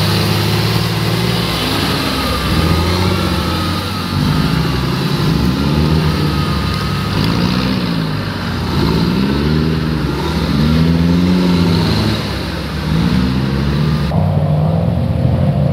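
Modified off-road 4x4 truck engine revving up and down in repeated blips, about once a second, as it works through mud. The sound changes abruptly near the end.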